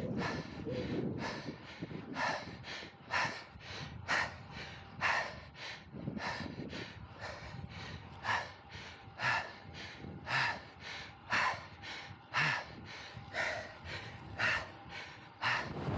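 A cyclist's heavy, laboured breathing while pedalling: a hard exhale about once a second with softer breaths in between. Low wind noise on the microphone runs underneath.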